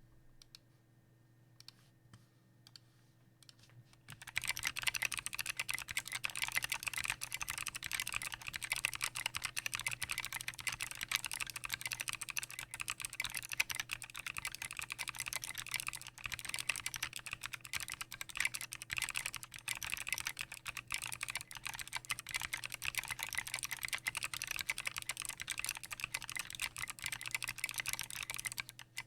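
Custom 60% mechanical keyboard being typed on: lubed Kailh Speed Bronze switches in a brass plate with PBT doubleshot keycaps and foam-dampened Tofu case. A few isolated keystrokes, then fast, continuous typing from about four seconds in.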